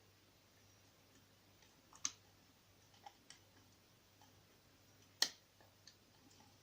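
Faint, scattered small clicks of a short hook pick working the pins of a small CISA oval lock cylinder under tension, with two sharper clicks about two seconds in and just after five seconds.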